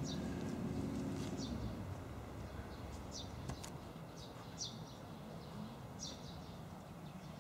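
Small birds chirping in short, high, falling calls, about half a dozen spread through, over faint outdoor background. A low rumble fades out over the first second and a half.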